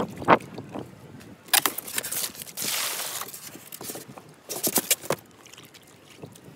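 Hands splashing and sloshing water in a small plastic bucket, with clusters of sharp splashes and a longer rush of water about three seconds in.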